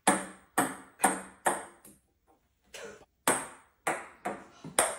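Ping-pong balls bouncing on a wooden tabletop: about ten sharp, ringing clicks, roughly two a second, with a pause of nearly a second around two seconds in.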